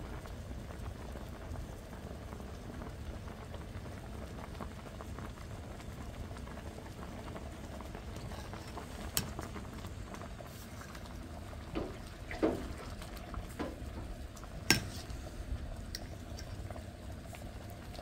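A pot of pancar greens at a steady rolling boil, bubbling throughout, with a few sharp knocks about nine, twelve and fifteen seconds in.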